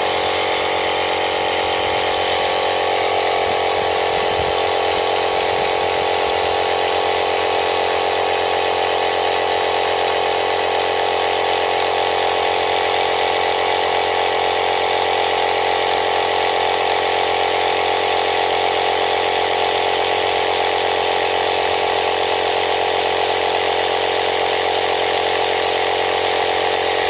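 Air compressor running steadily as it pumps air into a car tire that has just been sealed with tire sealant, bringing it up toward 35 psi.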